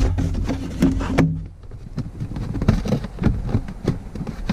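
Sharp clicks and knocks of plastic interior trim being handled and unsnapped, over a steady low hum.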